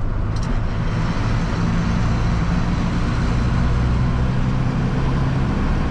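Steady low drone of a vehicle engine with road noise, as while driving along.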